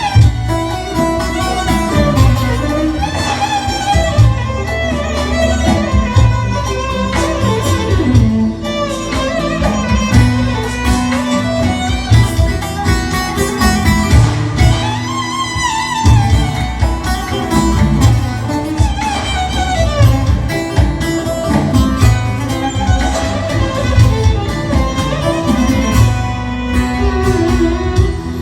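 Instrumental break of a Turkish folk song: a bowed violin melody over plucked strings and a steady bass beat.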